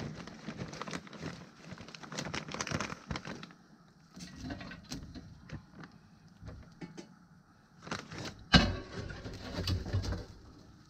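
Peach wood chips rustling and pattering onto hot charcoal in a small kettle grill, with the paper bag crinkling, then a loud metal clank a little over eight seconds in as the steel cooking grate is set down on the grill. A dove coos in the background.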